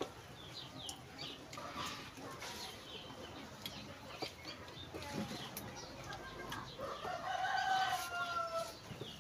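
A rooster crows once near the end, a single drawn-out call of about two seconds. Small birds chirp throughout.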